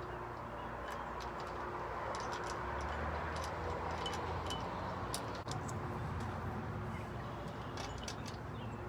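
Scattered light metallic clicks and ticks of step-bar mounting hardware (bolts and brackets) being handled and fitted, over a steady background hiss.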